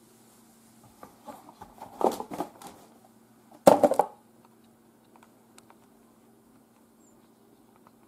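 Handling noises: rustling and light knocks, then a louder short clatter about three and a half seconds in as the cardboard camera box is set down among the bagged accessories, over a faint steady hum.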